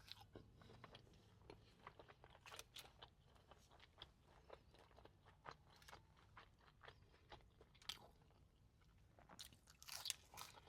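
Faint, irregular crunching and chewing of a bite of a hot and spicy McChicken sandwich, with a louder cluster of crunches near the end.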